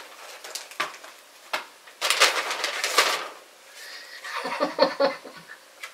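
Paper rustling and crinkling as it is handled and unfolded, with a couple of light clicks early on and the loudest rustle about two seconds in, then softer handling noise near the end.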